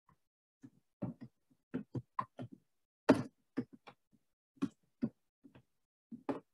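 Typing on a computer keyboard: irregular key clicks, a few a second, the loudest about three seconds in.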